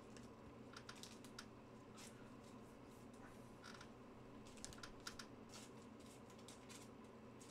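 Faint, irregular light clicks and soft rustles of small objects being handled at a desk, over a low steady room hum.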